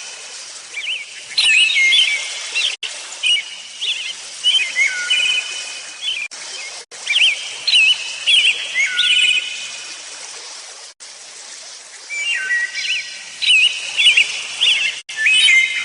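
Small songbirds calling, short clear whistled phrases of held notes and quick slides repeating every second or so, with a lull of about two seconds just past the middle before they pick up again.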